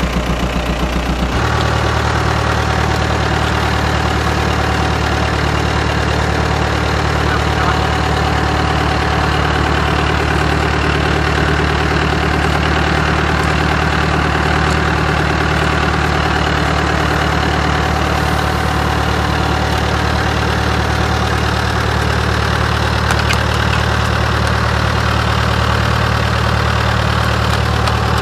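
Tractor engine running steadily at a constant speed, its note shifting slightly about a second and a half in.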